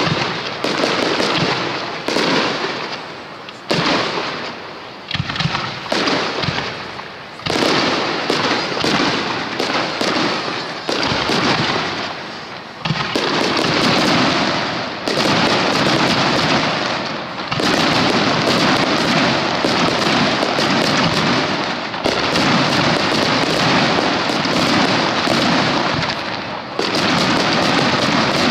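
Starmine fireworks: aerial shells launched and bursting in rapid succession. For the first dozen seconds the bangs come separately, about one a second; about halfway they run together into a dense, almost unbroken volley.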